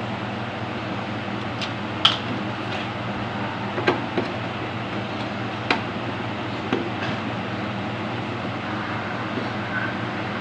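Four sharp clicks and knocks of an air fryer's casing and screws being handled during disassembly, spaced a second or two apart, over a steady background hum.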